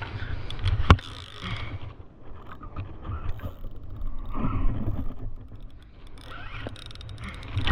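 Fishing reel working while a big fish is fought on the line, with a sharp click about a second in. Wind rumbles on the microphone underneath.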